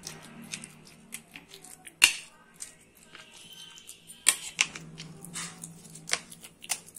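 Steel spoon clinking and scraping against a ceramic plate as roasted eggplant is mashed and mixed, in irregular clicks with sharper knocks about two seconds in and again a little after four.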